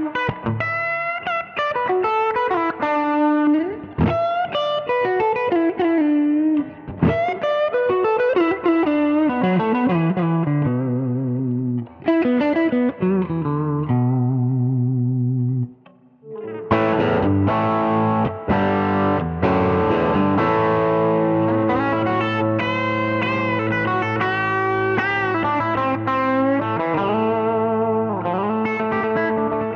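Conway Leo-T electric guitar with Madlove Broadcaster-style pickups, played through a Cornerstone Gladio overdrive pedal into a 1965 Fender Princeton amp with its spring reverb. Single-note lead lines with bent notes, a brief pause about sixteen seconds in, then fuller ringing chords and held notes.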